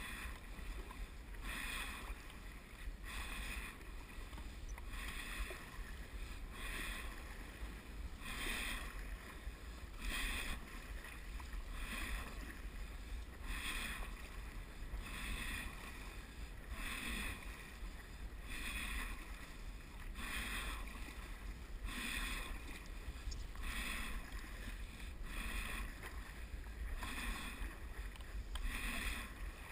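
Stand-up paddle strokes: the paddle blade catching and pulling through the water in a regular rhythm, about one splashy stroke every second and three quarters, over a steady low rumble.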